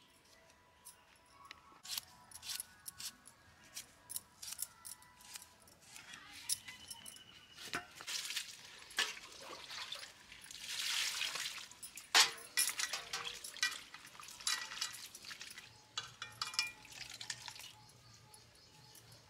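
Sliced bitter gourd being washed by hand in a steel bowl: a short pour of water about ten seconds in, with splashing and repeated small clinks of the pieces and hands against the metal.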